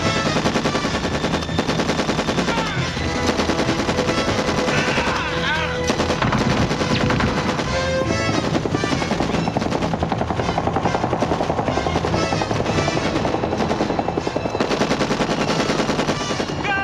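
Rapid, sustained automatic fire from M60 7.62 mm general-purpose machine guns on a war-film soundtrack, mixed with music and voices shouting.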